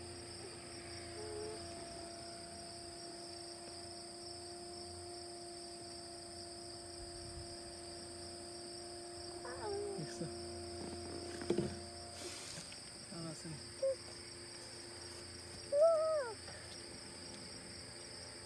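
Steady high-pitched chorus of insects, with a low steady hum that stops about twelve seconds in and a few short sliding calls, the loudest about sixteen seconds in.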